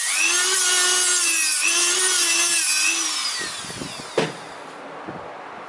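Dremel rotary multi-tool with a sanding attachment whining at high speed as it polishes the edge of a brake pad. Its pitch dips a few times as it is pressed against the pad. It winds down about three and a half seconds in, and a single knock follows.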